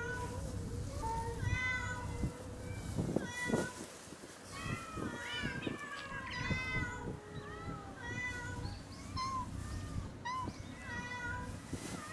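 A crowd of cats meowing, many calls overlapping one another without pause, some short and some drawn out.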